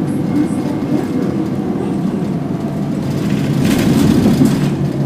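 Cabin noise inside a moving TransJakarta city bus: steady engine drone and road noise with the body and windows rattling, and a louder burst of rushing, rattling noise a little under four seconds in.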